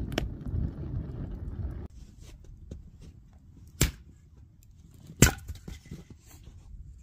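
Wind buffeting the microphone with a low rumble, cutting off abruptly about two seconds in. Then it is much quieter, with two sharp knocks about a second and a half apart; the second is the loudest, and a few faint ticks come between and after them.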